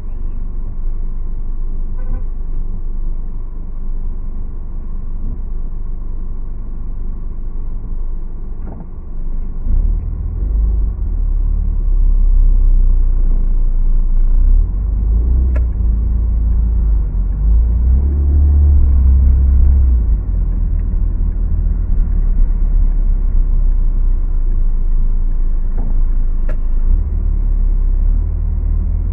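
Low rumble of a car driving in city traffic, heard from inside the car: engine and road noise that grows louder about ten seconds in as the car moves off, with a few faint clicks.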